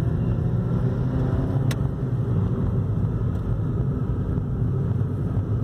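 Suzuki Swift Sport's 1.4-litre Boosterjet turbo four-cylinder running steadily under way, heard inside the cabin as a low drone mixed with road noise. A single sharp click about a second and a half in.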